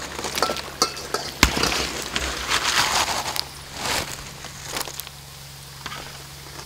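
Hot frying oil crackling and fried chicken feet clattering out of a wire-mesh strainer into a bamboo basket, with one sharp knock about one and a half seconds in. The crackling dies down after about three and a half seconds.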